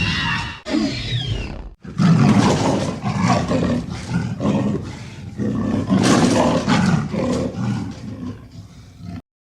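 Dinosaur roar sound effect for a Pyroraptor, mixed from hyena, crocodile, leopard and velociraptor sounds. A first cry has a falling high glide about a second in. After a brief gap comes a long run of rough, low, pulsing roars that cuts off abruptly near the end.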